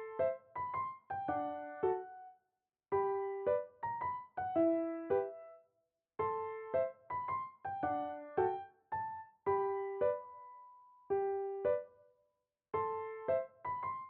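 Soft background piano music: a simple melody of single struck notes that die away, played in short phrases with brief silences between them.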